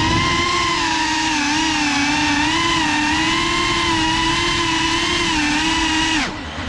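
Geprc Cinelog35 quadcopter's brushless motors and ducted propellers whining at a steady pitch that wavers slightly, heard from the onboard camera. About six seconds in, the pitch falls sharply and the sound dips as the throttle is cut, then the whine climbs again near the end.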